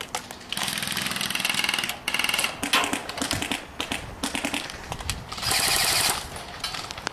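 Airsoft guns firing full-auto bursts, a rapid rattling clatter: one long burst about half a second in, a short one near two seconds, and another short burst near six seconds.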